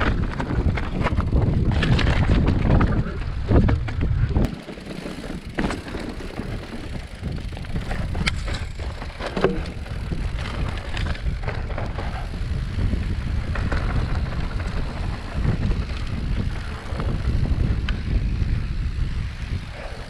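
Mountain bike riding over a rough trail: tyres rumbling over dirt and stones, with scattered clicks and knocks from the bike and wind on the microphone. The rumble drops out briefly about four and a half seconds in.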